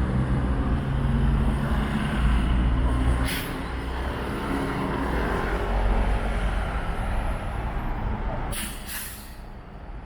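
A large vehicle's engine rumbling nearby, with short sharp hisses of air brakes about three seconds in and again near the end.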